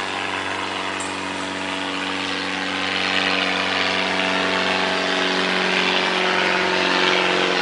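A motor engine running steadily with a constant pitch, slowly getting louder.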